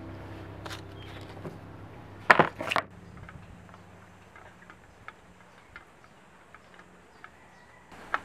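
Background music's last chord fading out, then a few sharp clicks about two and a half seconds in. After that comes quiet outdoor ambience with scattered faint ticks and a thin, high, steady tone.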